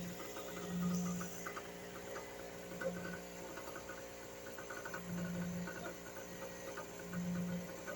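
A running boat motor: a steady mechanical hum with fine rapid ticking, and a low drone that swells in and out for about half a second every second or two.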